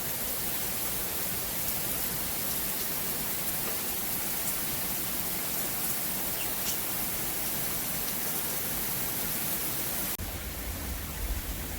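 Steady heavy rain, a dense even hiss. About ten seconds in, the sound changes abruptly and a low rumble joins the rain.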